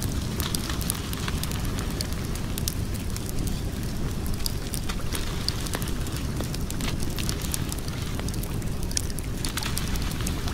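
Wood fire crackling, with frequent sharp, irregular pops over a steady low rumble.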